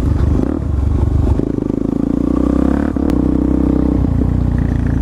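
Suzuki DR-Z400SM supermoto's single-cylinder four-stroke engine running under way, heard close up from the rider's helmet. Its pitch climbs over a couple of seconds, dips briefly about three seconds in, then holds steady.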